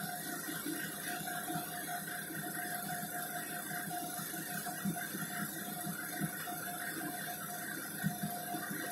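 Cabin noise of a Renault 12M city bus: the diesel engine running steadily, with a constant whine over it and a few light knocks and rattles.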